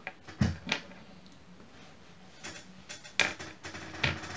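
Small plastic spiderling vials clicking and knocking on a table as they are handled, with a louder thump about half a second in and a few lighter clicks after.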